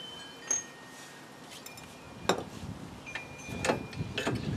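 A few sharp metallic clicks and knocks, spread over several seconds, as the lower shock absorber mount is fitted by hand on the rear axle. A low rumble builds near the end.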